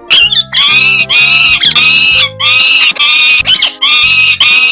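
Parrot squawking over and over, a run of short loud calls at about two a second, over light background music.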